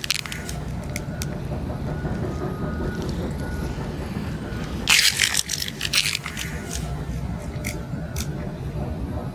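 Dry cat kibble rattles onto a steel dish at the very start, then a cat eats from the dish: scattered crunching clicks and a brief scrape of kibble against the metal about five seconds in, over a steady low rumble.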